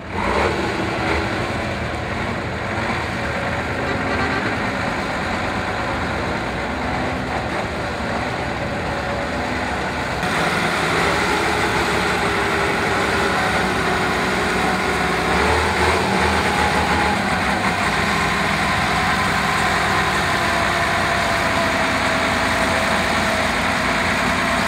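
Praga V3S 6x6 trial truck's diesel engine running under load as it climbs over dirt mounds, steady throughout and getting louder about ten seconds in.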